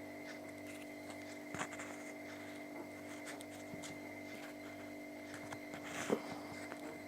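Faint clicks and taps of hands handling small parts, with two louder knocks about a second and a half in and about six seconds in, over a steady electrical hum with a thin high whine.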